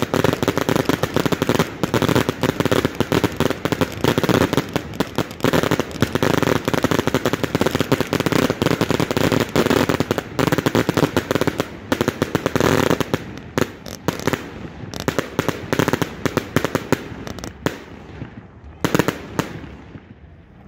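Consumer firework cakes firing: a dense, rapid barrage of bangs that thins out about two-thirds of the way through, with a few last separate bangs near the end as the volley dies away.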